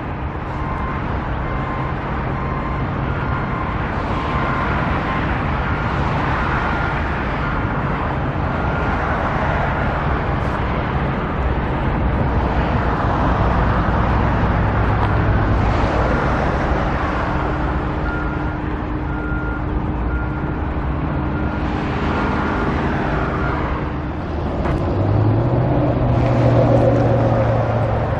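Steady engine and traffic noise on a construction site, with a high electronic beeping in short repeated pulses for several seconds at a time; near the end a machine's engine rises in pitch.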